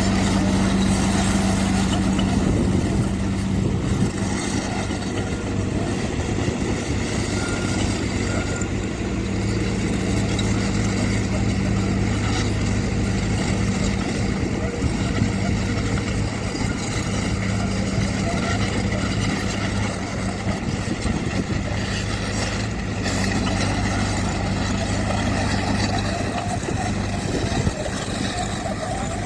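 Diesel engine of heavy earthmoving machinery running steadily at constant speed, a low even hum.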